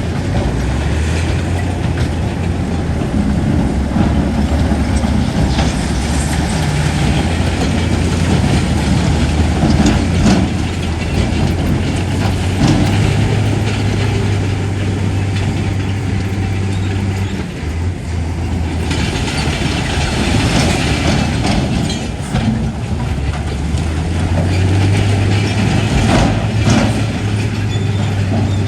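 Crawler bulldozer's diesel engine running steadily with the rattle and clank of its steel tracks and occasional knocks. The engine note dips briefly a little past halfway through.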